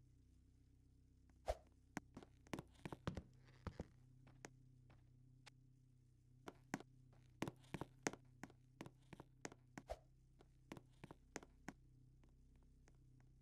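Irregular light clicks and knocks, clustered around 2–4 s and 7–9 s in, with a couple of heavier thumps, over a faint steady low hum.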